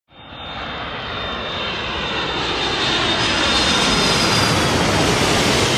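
Jet airliner engine noise: a dense, steady rush that swells in loudness over the first four seconds, with a faint high whine on top.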